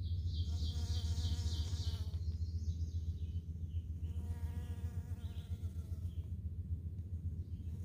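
Bees buzzing steadily while foraging on wildflowers. A bird sings a quick trill of repeated notes twice in the background.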